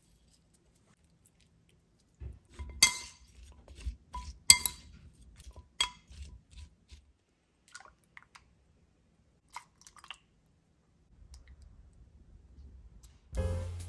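Sliced radish and cucumber salad being tossed in a porcelain bowl: the slices shift and the bowl clinks several times, most between about two and seven seconds in, with a few fainter clinks after. Music starts just before the end.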